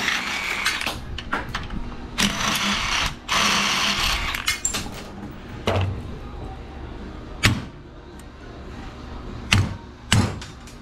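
Hand tools and metal engine parts clattering as they are rummaged through and handled, followed by a few separate sharp metal knocks.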